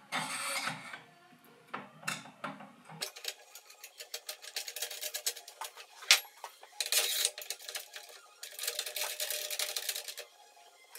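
Rapid metallic clicking and rattling, with a few short bursts of scraping, as long M10 threaded rods are screwed into the ends of a post driver's metal handle tubes.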